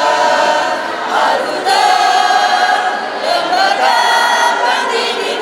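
A group of voices singing together, held notes that slide from one pitch to the next.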